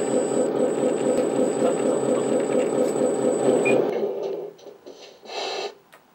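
LESU 8x8 RC hydraulic truck running with a fast, steady mechanical buzz that cuts out about four seconds in. A short half-second burst of noise follows about a second later, then a faint click.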